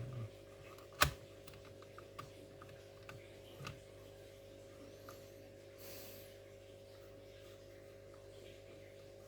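A sharp click about a second in, then a few lighter clicks and taps, from hands working on the opened laptop to swap out its SSD, over a steady low hum.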